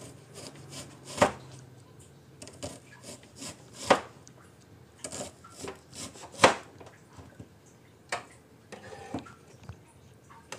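Chef's knife slicing a red onion into rings on a plastic cutting board: a series of sharp, irregular knocks as the blade cuts through and strikes the board, roughly a second apart, the loudest about six seconds in.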